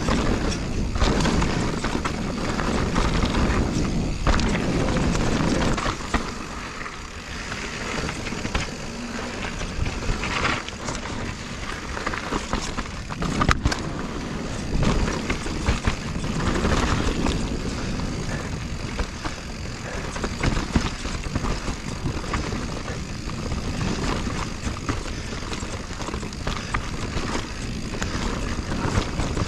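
A 2021 Giant Reign Advanced Pro 29 mountain bike riding fast down a dirt trail. The tyres make a steady rolling noise, the frame and suspension rattle and knock over bumps, and air rushes past the chest-mounted camera. It is louder for the first six seconds or so.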